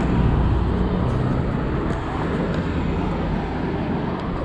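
Steady road traffic noise: a continuous rush with a low engine hum from passing vehicles.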